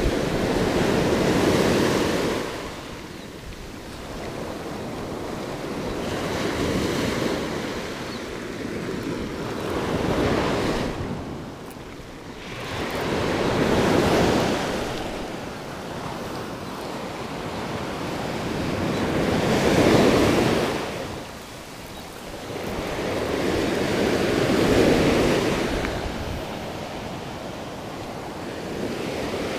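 Surf breaking and washing up a sandy beach, the rushing noise swelling and ebbing every few seconds, with wind buffeting the microphone.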